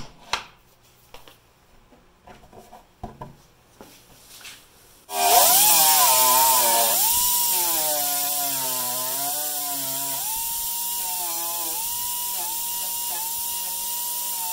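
A few light clicks and knocks, then about five seconds in an electric sander starts and runs, sanding Bondo filler on a fiberglass body panel, its motor whine wavering in pitch over a steady hiss.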